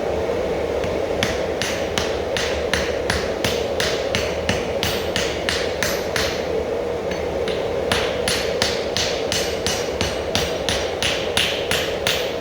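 Hammer blows on hot axe steel at the anvil, about three a second, in two runs with a pause of about two seconds midway: forge welding the axe's lip onto its body. A steady hum runs underneath.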